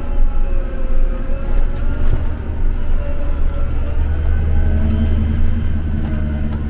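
Heavy harvest machinery's diesel engine running steadily with a deep drone, which swells about four seconds in.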